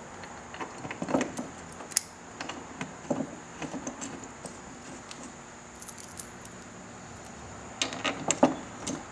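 Light metallic clinks and taps as a motorcycle backrest's metal bracket is set onto its rear mounting points and a bolt is started by hand, with a quick run of clinks near the end.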